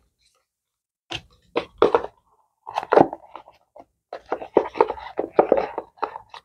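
Oracle card deck box being opened and handled. After about a second of quiet comes a string of sharp taps and knocks with scraping rustles between them, which gets busier near the end.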